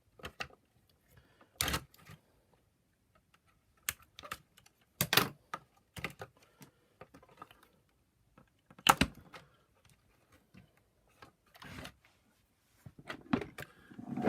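Scattered sharp clicks and light knocks from hand-working the plastic housing and parts of a vacuum power nozzle, about ten separate ones with quiet gaps between them.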